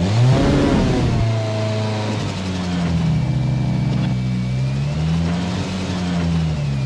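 Ford Fiesta rally car's turbocharged four-cylinder engine: a quick rev blip as the sound starts, then idling with the pitch slowly rising and falling.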